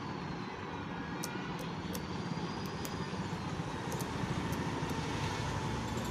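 Repaired ceiling fan motor switched on and humming steadily with a slowly wavering whine, straining to start turning. A few light clicks sound through it.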